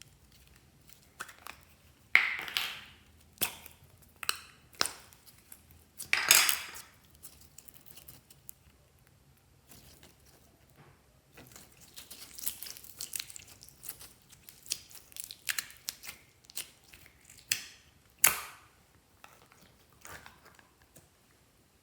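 Slime being squished and folded by hand, clear slime with store-bought slime mixed in: irregular sticky clicks and crackling pops of trapped air, with a few louder squishing bursts.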